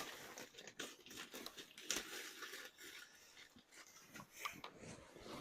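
Faint rustling with irregular scattered clicks: close handling noise.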